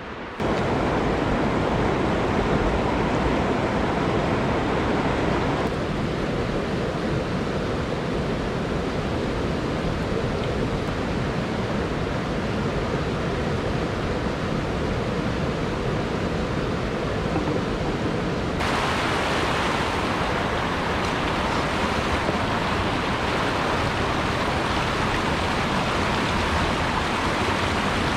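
Rushing water of a fast mountain trout stream running over rocks: a steady, loud rush of water noise. It changes tone abruptly about six seconds in, and becomes brighter and hissier about two-thirds of the way through, with white-water rapids close by.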